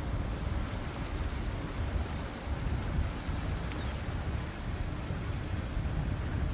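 Uneven low rumble of wind buffeting the microphone over the running of a motor yacht under way, with engine drone and water along the hull mixed together. No single event stands out.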